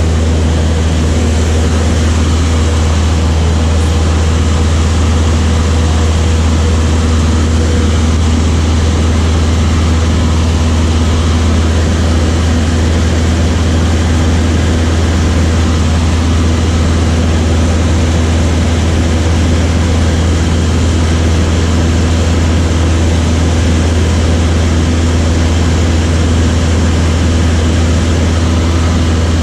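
A light aircraft's piston engine and propeller running at a steady, unchanging drone, dominated by a deep low hum.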